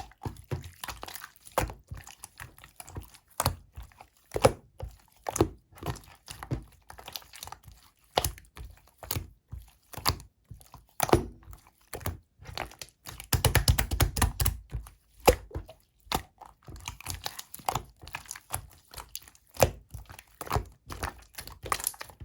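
Slightly runny clear slime being squeezed and poked by hand, giving irregular sticky clicks and pops, with a dense run of quick crackling pops a little past halfway.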